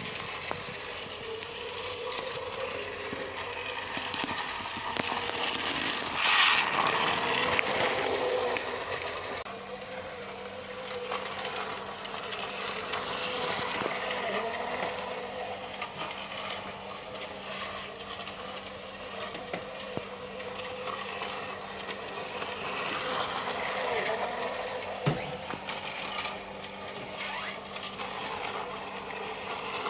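Battery-powered toy train's small electric motor whirring steadily, with its plastic wheels rattling along plastic track. It is loudest for a couple of seconds about six seconds in.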